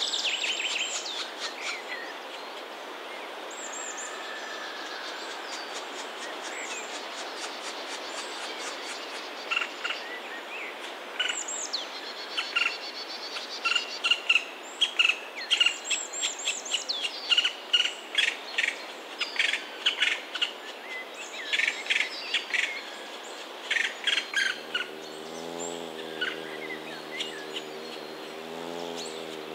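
Black woodpecker nestlings giving repeated runs of rapid, harsh begging calls, from about ten seconds in until shortly before the end, over a steady background hiss. Near the end a low droning hum comes in.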